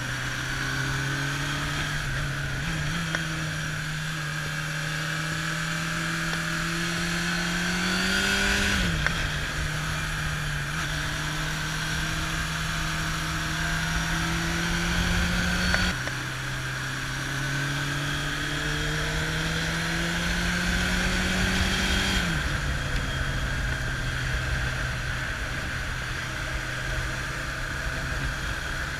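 Kawasaki Zephyr's air-cooled inline-four engine under way on the road. Its revs climb slowly and then fall back three times, once with a sudden step down. Steady wind rush on the microphone runs under it.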